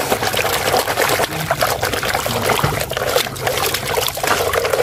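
Muddy water sloshing and splashing in a plastic basin as a plastic toy car is scrubbed with a brush and swished through it, with many quick small splashes throughout.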